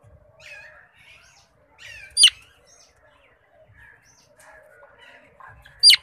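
Indian ringneck parakeet giving two short, shrill squawks, one about two seconds in and one near the end, over soft, continuous twittering and chatter from caged birds.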